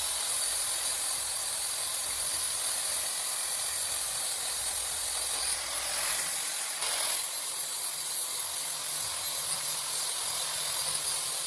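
A power tool cutting or grinding sheet steel: a steady, loud hiss that briefly eases about six seconds in, then carries on.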